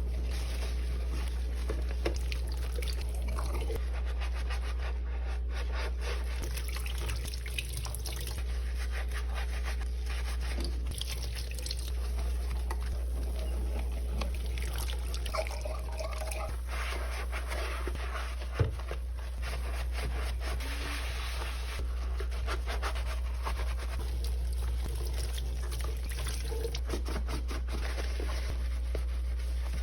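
Dishes being washed by hand at a sink: water trickling and dripping, with small clicks and knocks of dishware and one sharper knock about two-thirds of the way through, over a steady low hum.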